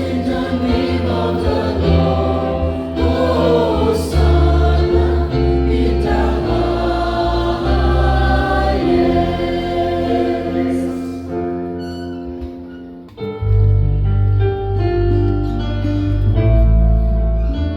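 Church choir singing with instrumental accompaniment and a strong bass line. The music dips briefly about two-thirds of the way through, then comes back in full.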